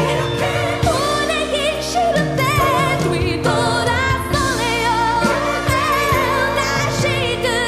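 A woman singing a pop ballad live into a handheld microphone, belting sustained notes with wide vibrato over instrumental accompaniment.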